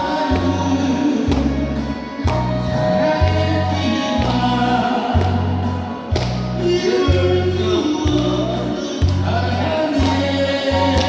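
A singer performing a Korean pop song over musical accompaniment with a steady, evenly paced bass line.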